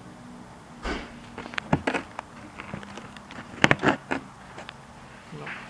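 Irregular clicks and knocks of hard plastic remote-control toy cars being handled, with the loudest cluster of clacks a little past the middle.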